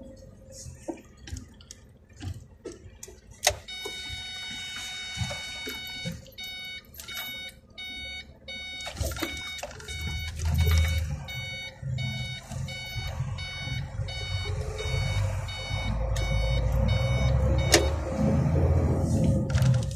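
Iveco semi-truck's engine and road noise heard inside the cab, growing louder in the second half. Over it runs a set of high, steady tones that stop and start.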